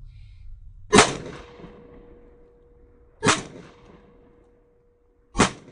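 Three 9mm pistol shots from a Staccato C2, about two seconds apart, heard from near the soft-armor target. Each is a sharp crack with a short ringing tail.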